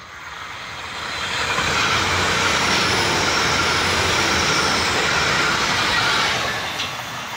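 Great Western Railway Intercity Express Train passing close by at speed: a steady rush of wheels on rail and running gear that builds from about a second in, stays loud through the middle, and falls away near the end.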